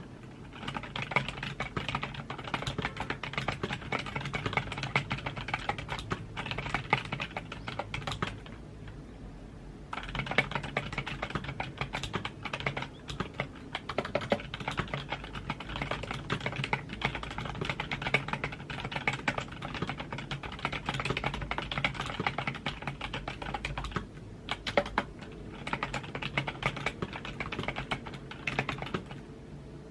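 Typing on a computer keyboard: a fast, steady run of keystroke clicks, with two short pauses, one about eight seconds in and another about three-quarters of the way through.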